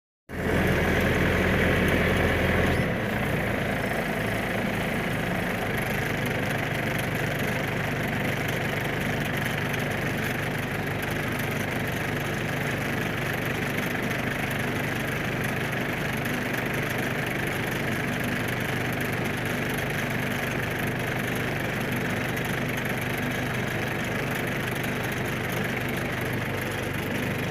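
Engine idling steadily; its low hum shifts slightly about three seconds in, then holds even.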